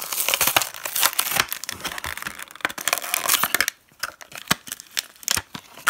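Plastic blister pack being torn open from its cardboard backing card, the clear plastic crackling and crinkling and the card tearing, for about the first three and a half seconds. After that, a few scattered sharp clicks.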